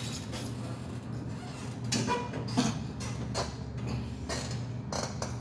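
Knocks, clicks and creaks from a seated leg extension machine as it is handled and sat on, over a steady low hum. The knocks come irregularly, about five of them in the second half.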